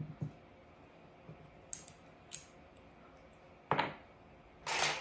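Seashells being handled and set down on a rope wreath: a few scattered light clicks, a sharper click about three-quarters of the way through, and a short rustling scrape at the very end.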